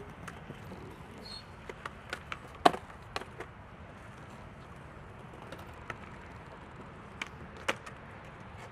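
Skateboards on concrete: scattered sharp wooden clacks of boards striking the ground, the loudest about two and a half seconds in.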